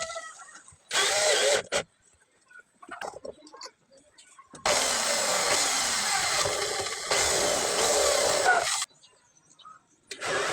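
Power drill running in two bursts: a short one about a second in, then a longer one of about four seconds, with a few light clicks between.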